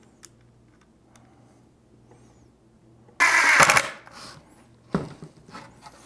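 Cordless drill briefly driving a flathead screw into cedar: one short burst of under a second, about three seconds in, followed by a single click about five seconds in.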